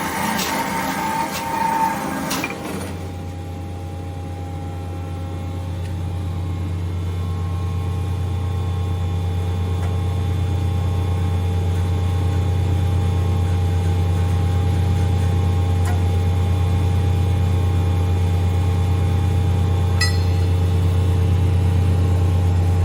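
Marvel 81A/10 vertical automatic bandsaw running, heard as a steady low motor hum with faint higher tones, slowly growing louder. The first two or three seconds hold clattering and clicks, and one sharp click comes about 20 seconds in.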